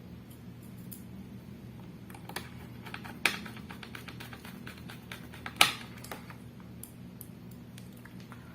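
Small screws being driven by hand with a magnetized Phillips screwdriver into a metal hard-drive caddy: light clicks and a quick run of small ticks, with a sharper click about three seconds in and another past five and a half seconds. A steady low hum runs underneath.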